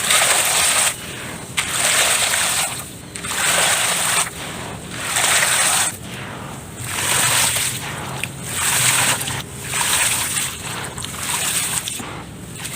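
Wet dirt being mixed and squeezed by hand in a tub, in repeated sloshing strokes about one every second and a half.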